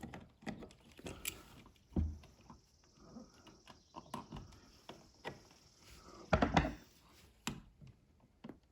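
Scattered small clicks and knocks of a dimmer switch and its steel mounting screws being handled and fitted into a wall electrical box, with a louder scuffing clatter about six and a half seconds in.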